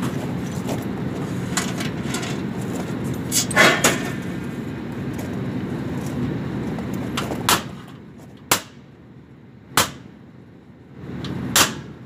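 Sharp metallic knocks and clanks from sheet-metal duct access panels being handled: a quick cluster about three and a half seconds in, then four single knocks spaced about a second apart in the second half. Under them a steady low hum from the rooftop equipment, which drops away about eight seconds in.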